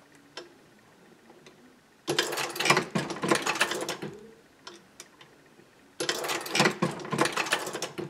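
Dillon 550C reloading press worked through two strokes of its ram, each a couple of seconds of quick metallic clicking and rattling, while the crimp die is being set on a 9mm cartridge in station 4.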